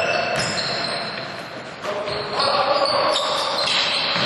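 An indoor basketball game in a large, echoing gym: a ball bouncing on the court, with shoes squeaking on the floor.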